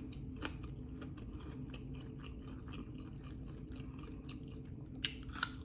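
A person chewing food close to the microphone, with soft, irregular crunches throughout and two louder crunches about five seconds in.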